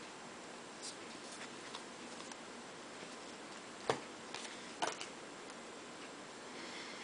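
A stack of baseball trading cards is being flipped through by hand, with soft flicks and clicks as the cards slide over one another. Two sharper clicks come about four and five seconds in.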